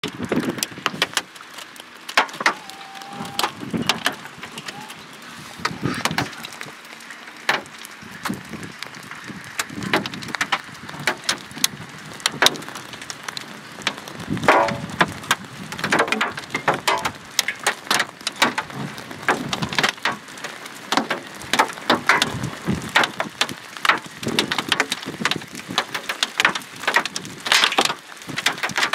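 Hail and rain coming down in a thunderstorm: a steady hiss of rain with frequent, irregular sharp knocks of hailstones striking, going on throughout.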